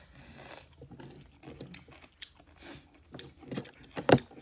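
A person chewing food close to the microphone, with many small wet mouth clicks and smacks and a sharper, louder click near the end.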